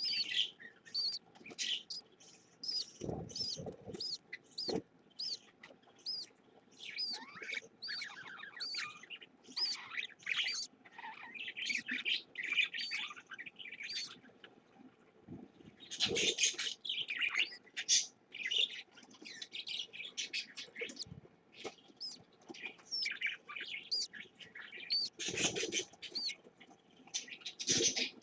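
Budgerigars chirping constantly in quick, short high notes, with a few brief low thumps among them.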